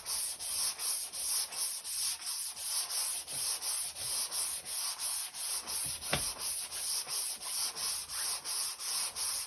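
Hand sanding of a car body panel with a homemade flexible sanding block faced with 320-grit abrasive: quick, even back-and-forth strokes, about three a second, each a dry rasping hiss. A single sharp tap about six seconds in.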